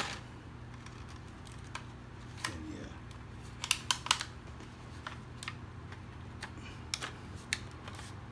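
Stiff clear plastic blister pack crackling and clicking as it is handled and peeled away from its old cardboard backing card, the glue softened with acetone. The sharp clicks are scattered, with the loudest few close together about four seconds in, over a low steady hum.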